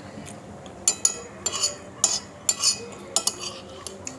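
Metal cutlery clinking against dishes, an irregular run of about ten sharp clinks with a bright ring.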